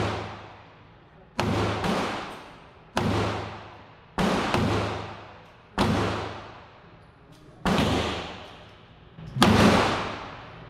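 Semi-automatic pistol firing a slow string of six single shots, one every one to two seconds, the loudest near the end. Each report echoes and dies away over about a second and a half in the enclosed indoor range.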